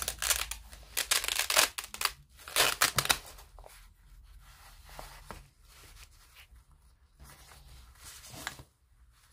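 A fabric tool roll being lifted and opened, with rustling and scraping of cloth in two loud bursts over the first three seconds, then quieter fumbling and a few small clicks as tools are sorted in its pockets.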